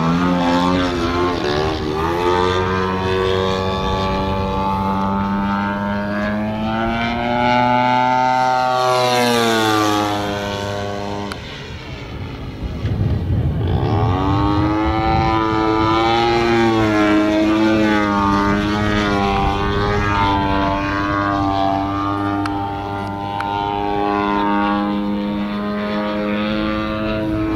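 The engine and propeller of a 35% scale Aeroworks Extra 260 radio-control aerobatic plane, running through a flight display with the engine note rising and falling. About nine seconds in it climbs to a higher, rushing pitch, then drops and quietens briefly around twelve seconds before picking back up and holding fairly steady.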